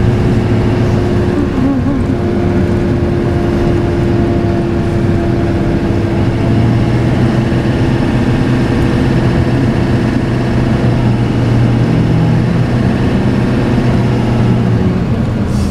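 A truck driving on the road, heard from inside the cab: a steady engine drone mixed with road and tyre noise.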